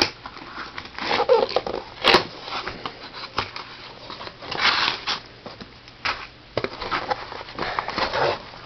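A cardboard box and its packing being opened and handled by hand: irregular rustling and scraping, with scattered small clicks and knocks.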